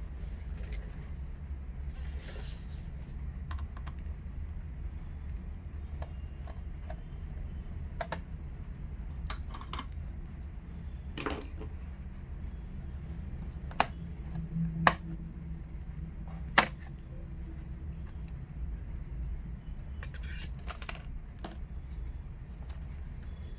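Scattered small clicks and taps of hands working on a laptop's case and parts, with three sharper clicks about two-thirds of the way through, over a steady low hum.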